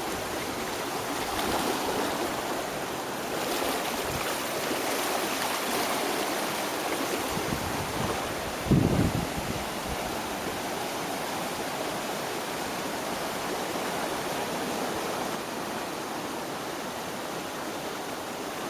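Floodwater of the swollen South Branch of the Raritan River rushing steadily. A brief low thud about halfway through.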